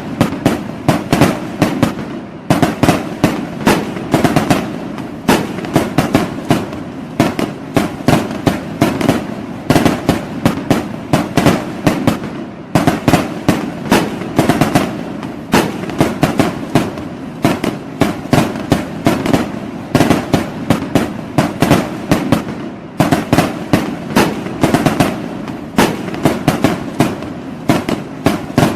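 Fireworks and firecrackers going off in a dense, continuous barrage of sharp bangs and cracks, several a second, with only brief lulls.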